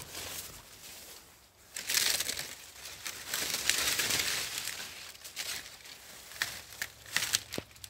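Plantain plant giving way at a machete notch: the fibrous stem tearing and dry leaves crackling and rustling. The crackling is loudest for a few seconds from about two seconds in, then thins to a few sharp cracks near the end.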